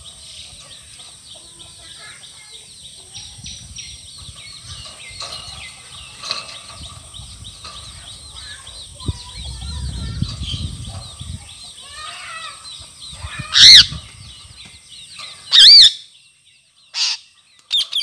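Indian ringneck parakeets: soft, busy bird chirping with a steady high hiss behind it, then four loud, shrill parrot calls in the last few seconds, the first two the loudest.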